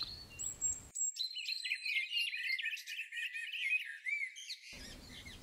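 Small songbirds chirping and warbling in quick, varied phrases, several calls overlapping.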